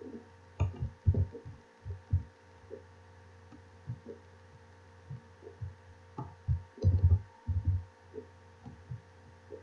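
Irregular soft low thumps and knocks, loudest in a quick cluster about seven seconds in, over a steady electrical hum.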